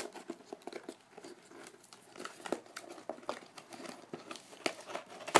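Crinkling and crackling of packing tape and cardboard as a taped box is worked open by hand, with scattered sharp clicks and a louder click near the end.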